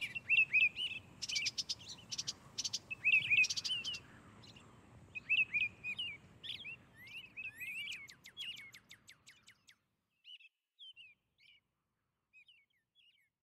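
Small songbirds chirping in quick series of short calls, mixed with clusters of sharp clicks; after about ten seconds only a few faint chirps remain.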